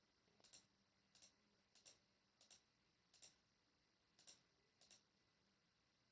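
Faint computer mouse button clicks: seven of them about two thirds of a second apart, each a quick double tick of press and release.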